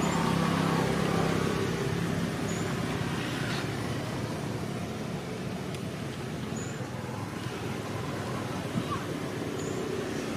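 Steady motor-vehicle noise, a low engine hum strongest in the first couple of seconds and then fading into a steady traffic-like hiss, with three or four faint short high chirps.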